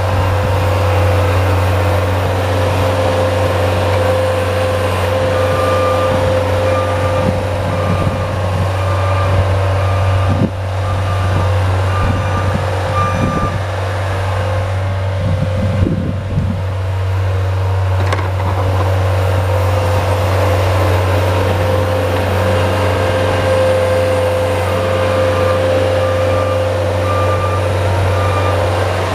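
Bobcat S175 skid-steer loader's diesel engine running steadily under load. Its backup alarm beeps at about two beeps a second in two spells, once a few seconds in and again near the end, as the machine reverses. A few short knocks sound in the middle.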